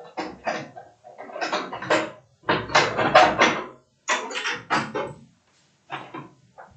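Jazz drum kit played freely in short, irregular bursts of rapid strikes and rolls on drums and cymbals, with brief gaps between them and the loudest burst about three seconds in.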